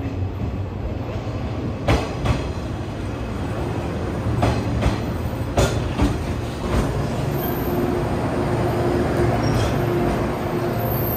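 The Rokumon, a converted 115-series electric train, running in along a station platform: a steady rumble with a string of sharp clacks from the wheels over rail joints in the first seven seconds, then a thin steady whine.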